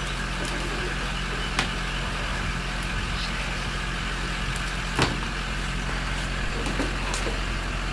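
A motor vehicle engine idling steadily, a low even hum. Two sharp knocks cut through it, the louder one about five seconds in.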